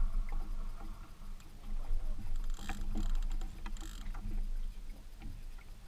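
Wind and water noise on a small open fishing boat, a low steady rumble with scattered light knocks against the boat, and two short rushes of hiss about three and four seconds in while a fish is netted over the side.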